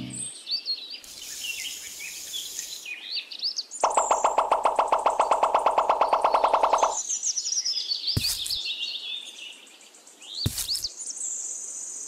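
Birds chirping and calling. A rapid, evenly pulsed trill runs from about four to seven seconds in, and there are two sharp short knocks near the end.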